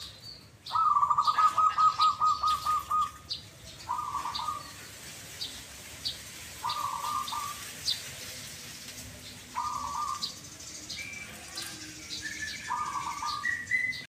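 Caged zebra doves (perkutut) cooing: a long, rapidly pulsed trill of coos about a second in, then short coo phrases about every three seconds. Faint, sparse high chirps sound above them.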